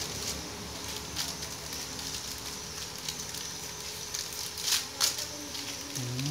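Plastic ice-cream wrapper crinkling and crackling in scattered bursts as it is torn open by hand.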